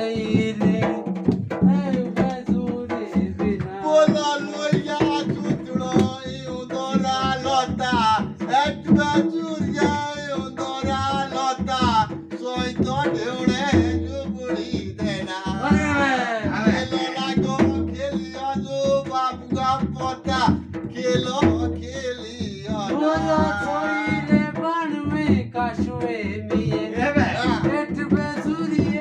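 Himachali Pahari folk music: a jhuri song sung over drums.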